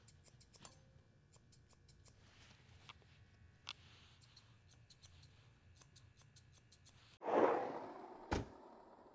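Grooming shears snipping the hair on a small dog's foot: a faint, irregular string of quick clicks. About seven seconds in, a loud swoosh sweeps in and fades, followed a second later by a short deep thud, logo-card sound effects.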